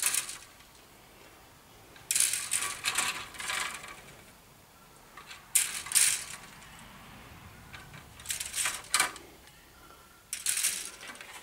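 Hard plastic model-kit sprues clattering against each other and the stack as they are lifted and set down by hand, in about five short bursts of rattling clicks.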